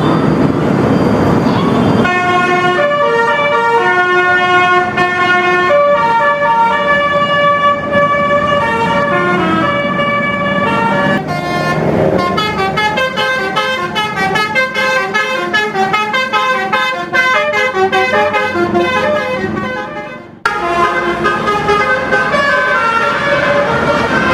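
Indonesian bus 'telolet basuri' multi-tone musical horn playing a tune note by note, after a couple of seconds of rushing noise. The notes come quicker from about halfway. About twenty seconds in the sound cuts suddenly to another horn tune.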